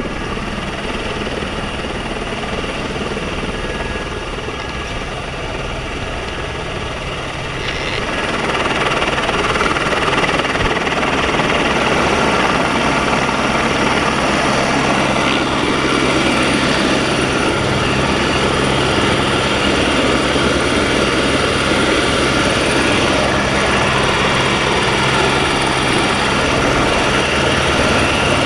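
Helicopter's turbine engine and rotor running steadily and loudly, growing louder about eight seconds in and then holding level.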